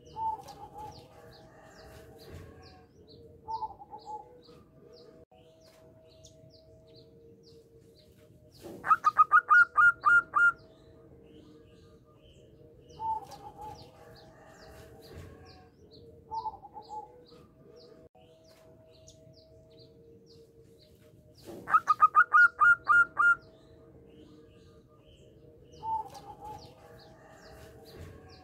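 Zebra dove (perkutut) singing: twice, a rapid run of about eight bright staccato cooing notes lasting under two seconds. Shorter, softer coos come between the runs.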